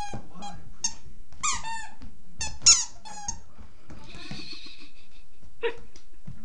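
A dog's squeaky toy squeaking again and again as the dog chews it, about eight short squeaks with a falling pitch in quick succession, then a softer rustle and one more squeak near the end.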